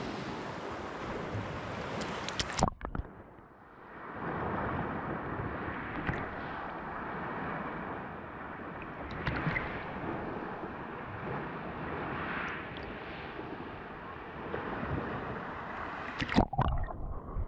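Calm sea water lapping and sloshing against an action camera held at the waterline. There is a splash about two and a half seconds in, after which the sound turns duller, and another splash near the end.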